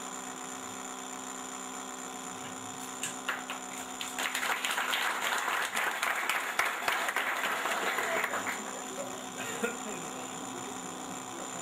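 Audience applauding for about four seconds, starting about four seconds in, over a steady electrical mains hum that runs throughout.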